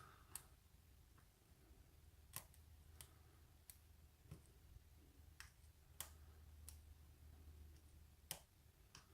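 Faint, scattered clicks of a lock pick working the pins inside a pin-tumbler lock core, about one every half second to a second, over low room hum.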